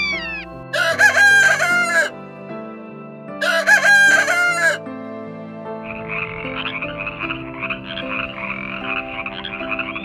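A rooster crowing twice, each crow a little over a second long and the loudest sounds here. Then, from about six seconds in, a frog calling in a rapid, continuous croaking trill. Soft background music runs underneath.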